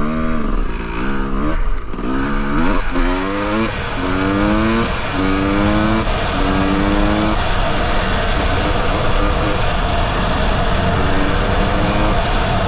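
Honda CR250R two-stroke single-cylinder dirt bike accelerating up through the gears. The engine note climbs and drops back at each shift, about six times in the first seven seconds, then settles into a steady cruise, with wind rushing over the microphone.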